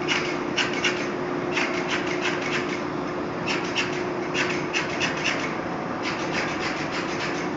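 Quick, repeated scraping strokes from hand work on a railway wheelset's axle end, coming in short runs with brief pauses between them, over a steady shop machine hum.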